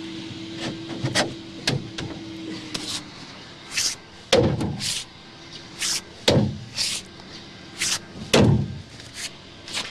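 Sledgehammer blows driving a stake at the foot of a steel pool-wall brace: a series of heavy strikes, the loudest coming about every two seconds in the second half, with sharper metallic clinks between.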